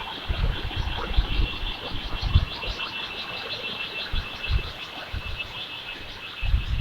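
A calling animal gives a high-pitched, rapidly pulsing chirp with a steady whine beneath it; it stops suddenly at the end. Irregular low thumps of wind or handling on the microphone run under it.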